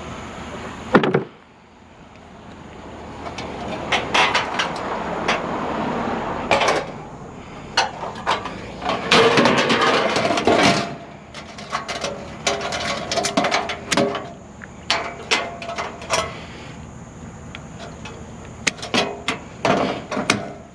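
Scrap metal being handled and loaded: a hard bang about a second in, then irregular clanks and knocks, with a dense rattling clatter of ringing metal near the middle.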